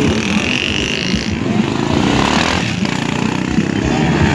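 Dirt bike engine running and revving, its pitch rising about two seconds in, with voices in the background.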